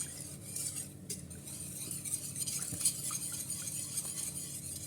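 A utensil stirring a cream of eggs, sugar, milk and pastry-cream powder in a pot, scraping and clinking against the pot in quick repeated strokes.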